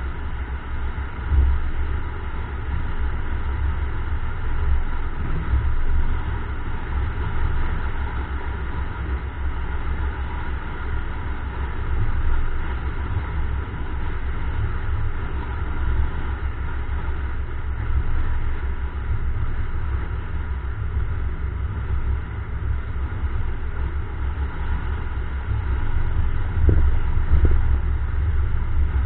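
A car driving steadily, recorded from a camera mounted outside the car body. Wind buffets the microphone in an uneven low rumble over continuous tyre and road noise, with a few short knocks near the end.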